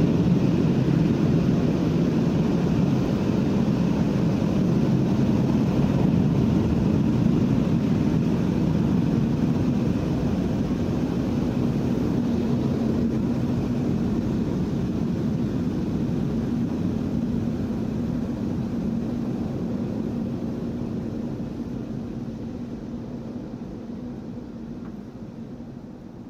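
Heavy rainstorm with strong wind: a steady, dense rush with a deep low rumble underneath, gradually fading out over the last several seconds.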